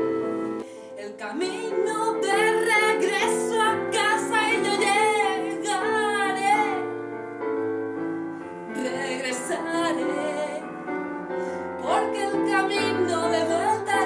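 Music: a woman singing with a wavering vibrato over a piano or keyboard accompaniment.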